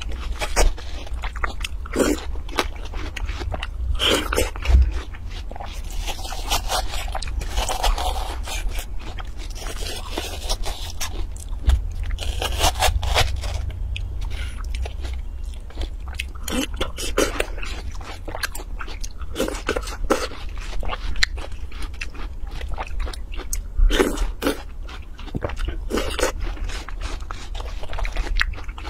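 A metal spoon scraping and scooping the flesh out of a halved watermelon, mixed with bites and chewing of the watermelon: a run of irregular short crunches and scrapes.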